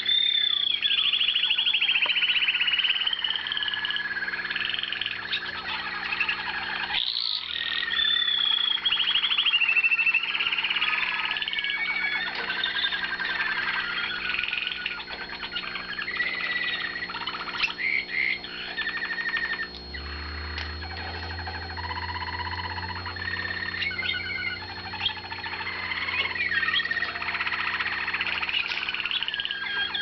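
American Singer canaries singing: a continuous stream of rolling trills and warbling notes, rising and falling in pitch.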